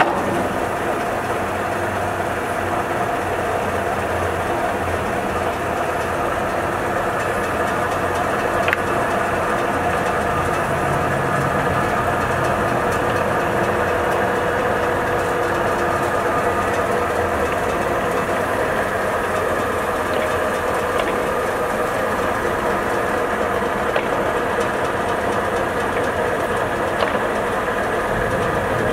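Enco 14" x 40" engine lathe running, its geared headstock giving a steady mechanical whir, with a few faint clicks along the way.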